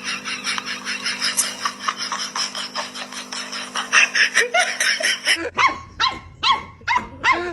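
A dense run of rapid, high-pitched sounds cuts off about five seconds in. A dog then starts barking repeatedly, about two barks a second.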